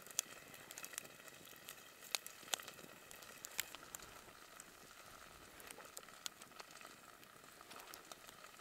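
Wood campfire crackling, with scattered sharp pops over a faint steady hiss; the louder pops come in the first few seconds.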